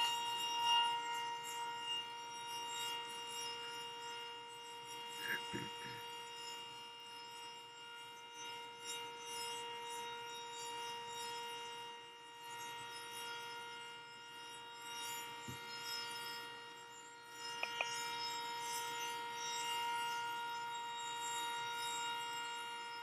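Sentry 10V outdoor warning siren sounding a steady tone, its pitch holding level while it slowly swells and fades in loudness.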